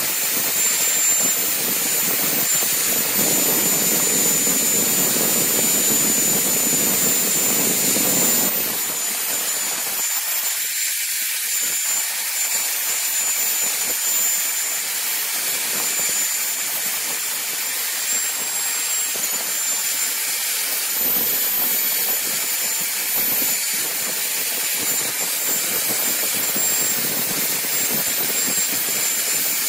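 Makita electric drill running steadily at high speed with a cloth buffing wheel in its chuck, polishing a steel cleaver blade pressed against the wheel. A high steady whine sits over a rushing noise, and the lower part of the rush eases off about eight seconds in.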